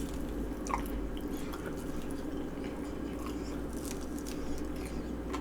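Close-miked chewing and small wet mouth clicks from someone eating food, over a steady low hum.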